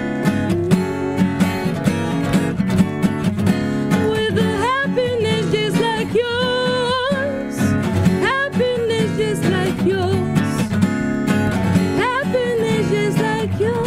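Acoustic guitar strummed steadily while a woman sings over it, her voice gliding up into and between notes.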